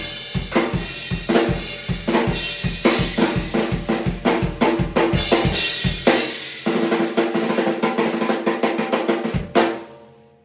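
Drum kit playthrough with a Mapex Hydro 13x7-inch snare tuned a little high: a steady groove of bass drum and snare, then a busier run of hits in the second half. It ends on a last loud hit about nine and a half seconds in that rings out in an echoey room.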